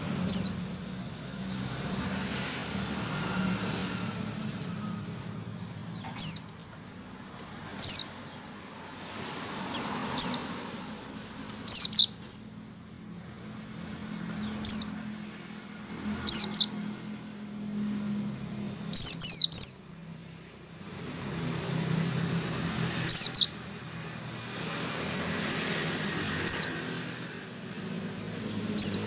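Caged white-eye (pleci) giving short, sharp call notes, each a quick downward-sliding chirp, about a dozen scattered singly and in quick pairs. These are the 'ngecal' calls, the opening calls a white-eye makes before breaking into full song. A low, steady rumble runs underneath.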